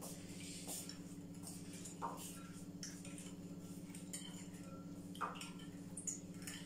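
A spoon stirring sugar into warm milk in a glass bowl, clinking lightly against the glass about six times, over a steady low hum.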